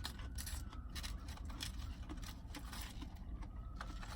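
Faint rustles and small scrapes of someone eating from a takeout food tray, scattered short clicks over a low steady rumble.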